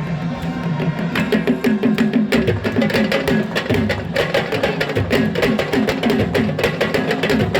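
Percussion music: fast drumming with many quick strokes and pitched low drum notes.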